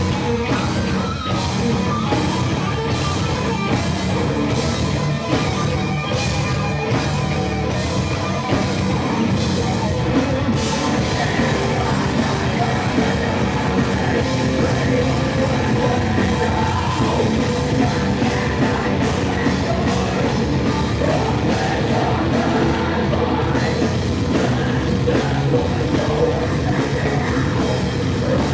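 Heavy metal band playing live: distorted electric guitar and a drum kit, with shouted vocals. The loud, dense sound runs on throughout, with a steady pounding drum beat over the first ten seconds or so.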